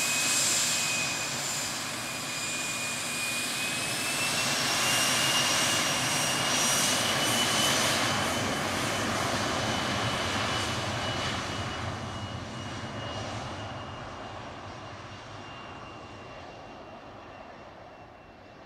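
Twin-engine business jet's rear-mounted turbofans at takeoff power. A high whine, rising slightly in pitch, sits over the engine roar. The sound is loudest a few seconds in, then fades steadily as the jet moves away down the runway.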